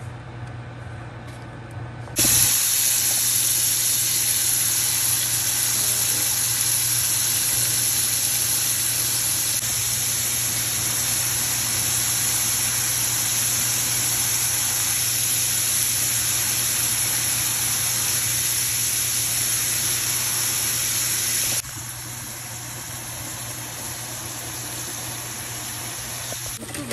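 Shrimp sizzling in hot oil in a frying pan: a loud, steady sizzle that starts abruptly about two seconds in and drops to a quieter sizzle near the end.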